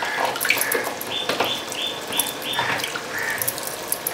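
A small pet dog whimpering, a run of short high-pitched whines about three a second, with a few light clicks alongside.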